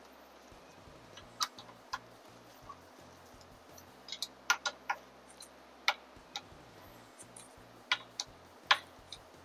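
About ten irregular, sharp metallic clicks of a 6 mm hex wrench being seated and turned on the faceplate bolts of a Talaria MX5's handlebar stem.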